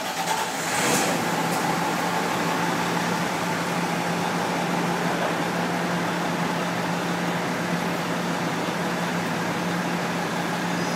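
Fire engine's diesel engine idling steadily: an even, unbroken hum with a hiss over it.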